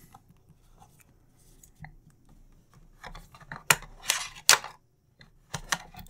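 Sharp plastic clicks and taps as a video doorbell unit is handled over its cardboard box and insert, mostly quiet at first, then a quick run of clicks about halfway through and a few more near the end.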